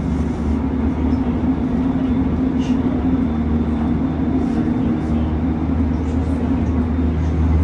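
Interior running noise of a Gyeonggang Line electric commuter train car travelling between stations: a steady low rumble of wheels on rail with a constant low hum.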